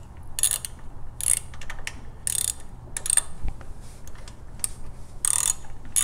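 A 3/8-inch-drive socket ratchet clicking in short bursts, roughly one a second, on each back-swing as it threads an oil filter nipple into the engine.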